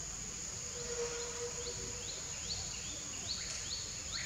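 Forest ambience: a steady, high-pitched insect drone, joined about halfway through by a bird's quick run of short rising chirps, several a second.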